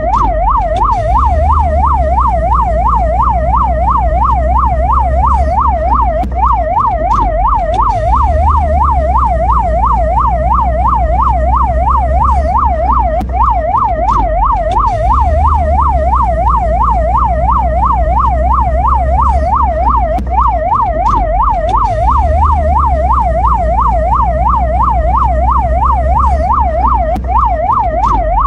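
Mexican ambulance siren in a fast yelp, its tone sweeping up and down about three times a second without a break, over a steady low rumble.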